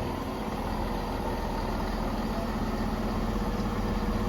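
Diesel engines of a Class 158 and Class 170 diesel multiple unit idling at the platform, a steady low hum that grows gradually louder toward the end as the train prepares to depart.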